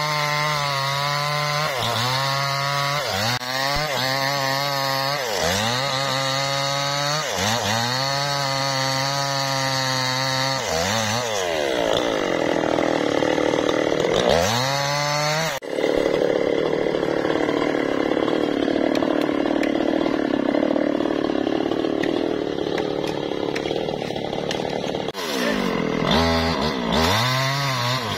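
Two-stroke chainsaw cutting a felled teak trunk. Its engine revs up and drops back every second or two. About halfway through the sound changes abruptly to a steady, harsher running with no clear pitch, and near the end the rev-and-drop pattern returns.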